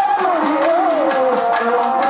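Chekka bhajana folk devotional music: one continuous melody that wavers up and down in pitch, over a steady beat of clicks, about four a second, typical of the wooden hand clappers the dancers strike.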